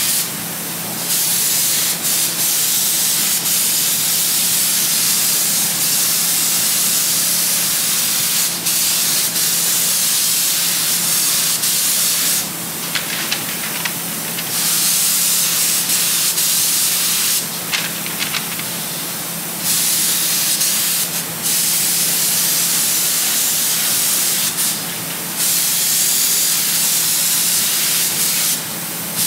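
Paint being sprayed: the sprayer gives a long steady hiss, broken by short pauses between passes, twice for about two seconds in the middle. A steady low hum runs underneath.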